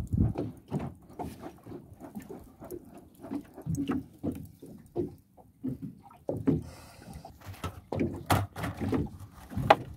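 Plastic bucket lid fanned over a small charcoal grill to kindle the coals, in irregular low puffs of air with light knocks. After about eight seconds the wire grill grate clatters sharply as it is handled.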